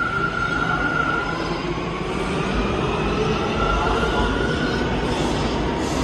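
New York City subway train moving through the station, a steady rumble of wheels on rail with a high wheel squeal. The squeal fades out about a second in and comes back more faintly a couple of seconds later.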